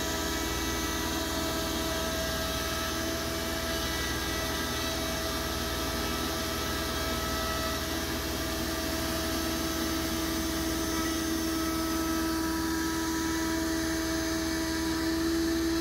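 DeWalt 618 router on a CNC machine running steadily as it carves grooves into an MDF panel. It is mixed with the constant drone of a shop vac holding the work down on a vacuum table.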